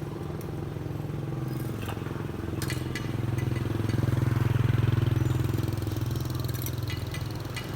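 Engine of a heavy machine running steadily, growing louder about four to five seconds in, with a few short clanks.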